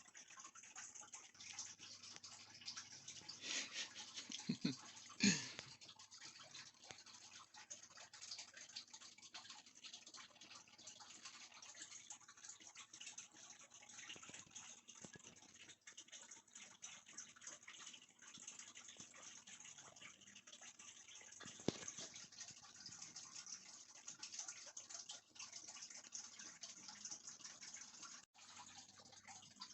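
Faint rustling and crackling of the electric screwdriver set's packaging being handled, with scattered light clicks and a few louder ones about four to five seconds in.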